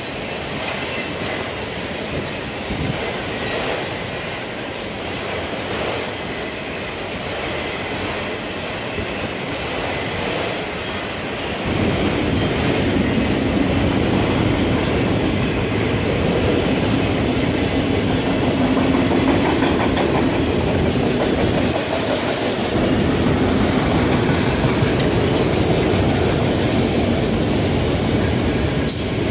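Freight train of enclosed autorack cars rolling past, a steady noise of wheels running on the rails. It grows louder and deeper about twelve seconds in.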